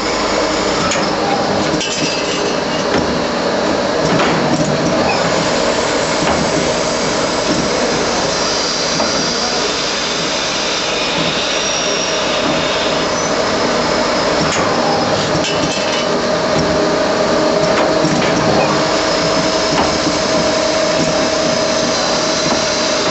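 Traub A25 automatic lathe running with its automatic loader, a steady mechanical whir with a held tone, broken by a few short knocks and clacks.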